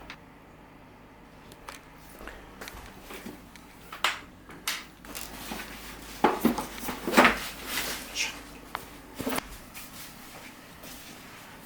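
Scattered clicks and knocks of small objects being handled in a small room, with a busier cluster of louder knocks through the middle.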